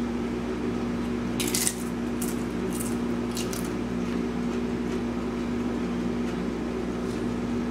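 Crunching bites of a fried tortilla chip: one loud crunch about a second and a half in, then several shorter crunches over the next two seconds, over a steady low hum.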